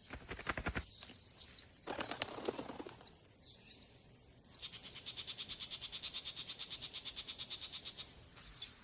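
Small songbirds calling with short, high chirps. About halfway through comes a fast, even trill of about ten notes a second, lasting some three and a half seconds.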